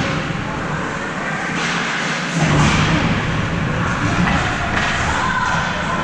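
Rink noise during an ice hockey game: dull thuds and knocks over a steady din of crowd voices in a large hall, the thudding heavier from about midway.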